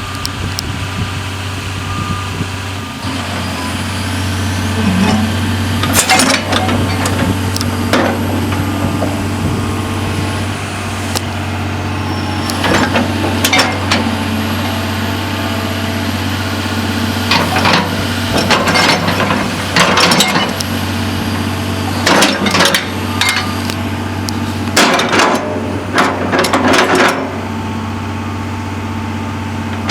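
John Deere 250G LC excavator's diesel engine running steadily with a low hum. Irregular metallic clanks and knocks come in clusters over it as the machine works.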